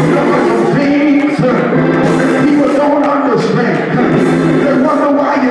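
Music with singing: a voice holds long sung notes.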